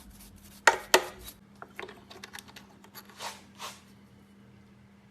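Metallic clicks and knocks of a key and the clamp being handled on a key cutting machine: two sharp knocks about a second in, then lighter ticks and brief scrapes, over a faint steady hum.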